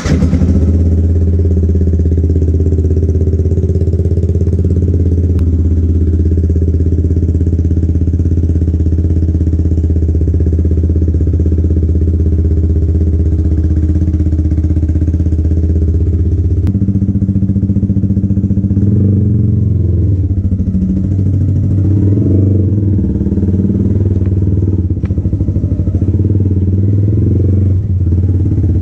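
Yamaha MT-15's single-cylinder engine with an aftermarket Akrapovic exhaust firing on a cold start and idling steadily. About 17 seconds in the note changes, and the bike then pulls away at low revs with light throttle.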